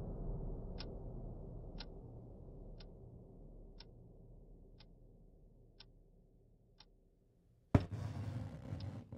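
Wall clock ticking steadily, about once a second, over a low drone that fades away. About three-quarters through, a sudden loud hit breaks in, followed by a rumbling noise, with the ticking going on underneath.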